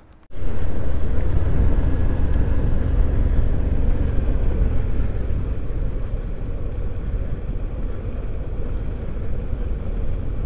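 Suzuki V-Strom 650's V-twin engine running while riding, under heavy wind noise on the camera microphone. It starts abruptly just after the beginning and stays steady.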